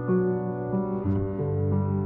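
Instrumental music: a slow run of held notes and chords changing every third of a second or so, the intro of the ad's song.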